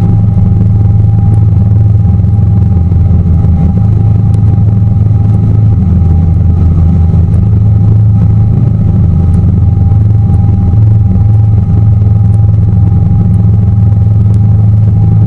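Tour boat's engine running steadily under way: a loud, even low drone with a thin, steady whine above it.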